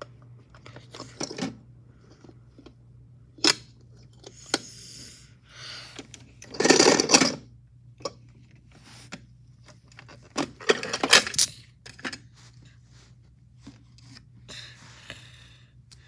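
A plastic toy washing machine in its cardboard box being handled: scattered clicks and knocks, with two louder bursts of scraping and rustling about seven and eleven seconds in, as its porthole door is worked open.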